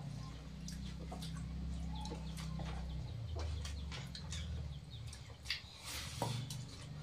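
Eating by hand from steel plates: rice being mixed and scooped, with chewing and scattered small clicks and clinks of fingers and a steel tumbler on metal, over a steady low hum.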